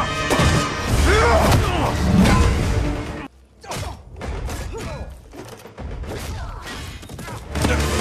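Action-film fight soundtrack: dramatic score with punches and heavy body thuds. The sound cuts out abruptly about three seconds in, comes back quieter, and swells loud again near the end.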